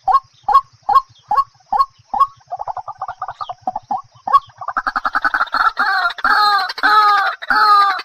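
Fowl calling. It gives evenly spaced clucks about two and a half a second, then a quick run of softer notes from about two and a half seconds in. From about five seconds in it switches to louder, longer, harsh calls about three a second.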